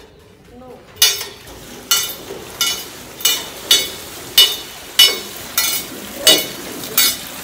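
Metal Persian wheel (rahat) being turned by its hand-pushed beam: its gearing and bucket chain clank sharply about once every two-thirds of a second, starting about a second in, over a steady splashing hiss of water spilling from the buckets.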